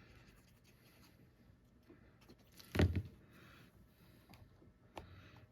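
Quiet handling of paper craft pieces on a tabletop, with one soft knock about three seconds in and a fainter tap near the end.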